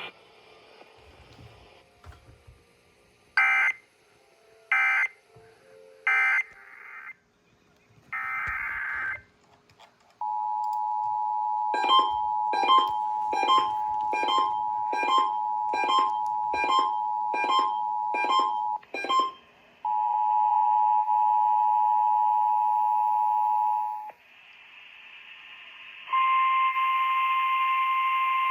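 Emergency Alert System tones. First come three short screechy digital data bursts, the end-of-message code that closes a test, and then a fourth burst. Then the steady two-tone EAS attention signal sounds, with about ten sharp beeps pulsing over it roughly once a second; the two-tone returns briefly, and near the end a single steady alert tone starts.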